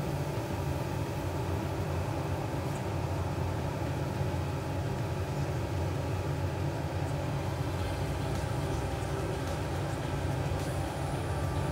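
A steady low mechanical hum with a light hiss above it, unchanging throughout, with a few faint ticks now and then.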